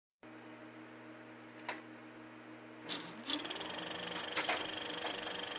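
A small motorized machine starts with a few sharp clicks and its motor winds up about three seconds in. It then runs with a fast, steady mechanical clatter.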